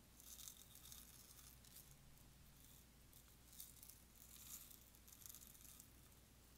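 Faint rattling of tiny seed beads shaken out of a small plastic tube and sprinkled onto clear slime, in several short bursts.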